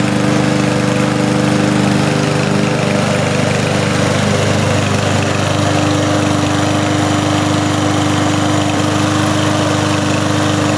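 A self-propelled walk-behind lawn mower's engine running steadily at constant speed while the mower drives itself.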